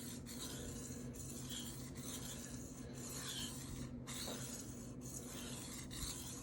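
Steel knife blade being stroked across a wet Shapton Rockstar 1000 whetstone, a soft rasping scrape about once a second, with a faint steady hum underneath.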